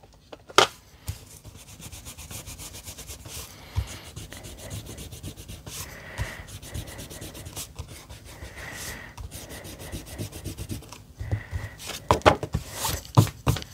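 Pencil eraser rubbing rapidly back and forth over stamped cardstock, erasing pencil guide lines, in a steady run of quick strokes. Louder handling of the card panel near the end.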